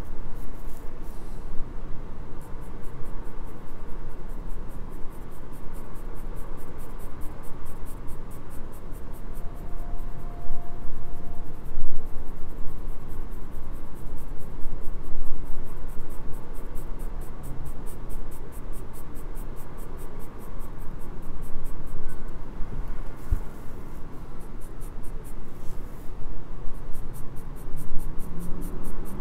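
Graphite pencil scratching across paper in rapid, even shading strokes, with background music.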